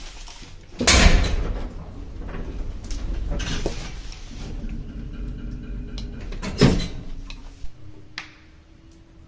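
Old service lift without inner doors: a door bangs shut about a second in, then the car runs with a low rumble and rattle. A second loud clunk comes about two-thirds of the way through, followed by a faint steady hum.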